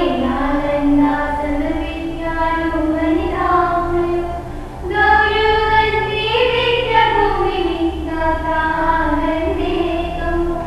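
A woman's voice singing a slow melody of long, held, gliding notes over a steady instrumental backing.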